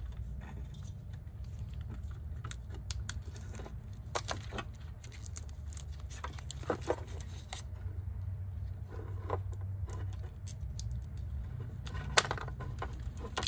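Handling noise from a plastic battery case and its shrink-wrapped cell pack being worked loose by gloved hands: scattered clicks, taps and rustles, with a sharper click near the end, over a steady low hum.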